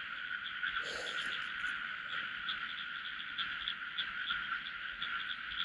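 A chorus of many frogs calling together, a steady dense sound with a quick repeated pulse on top.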